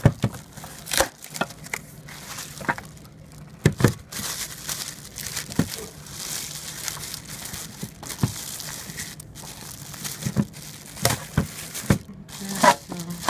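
Plastic wrapping crinkling and cardboard packing rustling, with scattered light knocks and clicks as packed appliance parts are handled and pulled out of a box.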